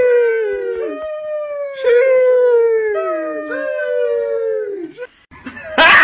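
A dog howling: several long, wavering howls that slide down in pitch and overlap one another, stopping about five seconds in. A sudden loud hit follows right at the end.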